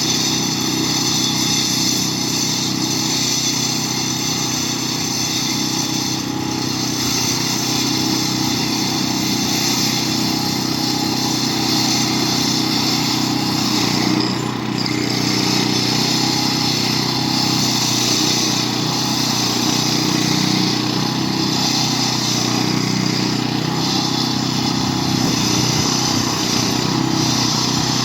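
Concrete saw running steadily as its blade cuts a crack-control joint into a concrete slab, with a constant motor hum under the grinding hiss of the cut.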